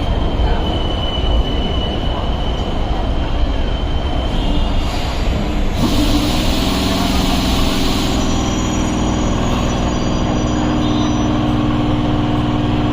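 Electric suburban train running on the rails with a rumble and a thin wheel squeal for the first few seconds. About six seconds in there is a loud hiss of air lasting about two seconds, followed by a steady hum.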